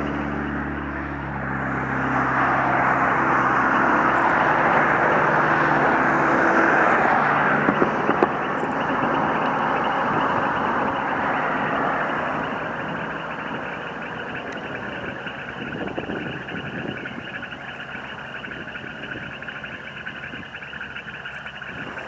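Loud chorus of many frogs croaking together in a marsh, a dense unbroken din that eases somewhat in the second half. A vehicle's engine hum sits underneath for the first few seconds and fades out.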